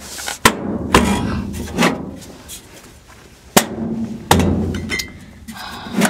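A furnace filter being worked into a sheet-metal filter rack: several sharp knocks and bangs, the heaviest a low thud about four seconds in.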